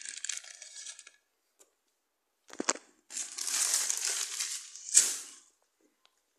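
A wrapper being crumpled by hand. The crinkling comes in a short burst at the start, then a sharp crackle about two and a half seconds in, then a longer stretch of crinkling from about three seconds, with a loud crackle near five seconds.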